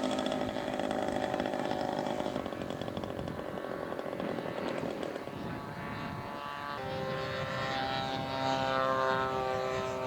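Propeller engines of radio-controlled scale model airplanes running. About two-thirds of the way in, a louder engine note comes in with its pitch slowly falling, as a model passes.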